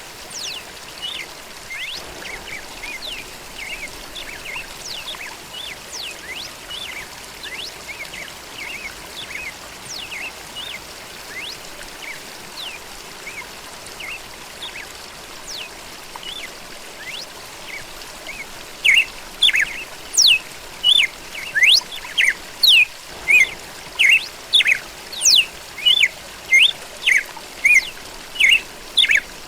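Songbirds chirping and whistling over a steady trickle of running water. About two-thirds of the way in, one bird starts a louder call, repeated about twice a second.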